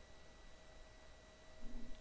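Quiet room tone: faint steady hiss with a thin high electrical whine, and a brief faint low sound near the end.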